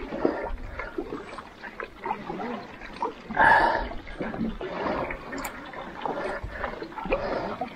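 Double-bladed carbon kayak paddle stroking on alternate sides of a solo canoe: blades catching and splashing into calm river water and dripping as they lift out, in a rhythmic pattern with one louder splash about halfway through.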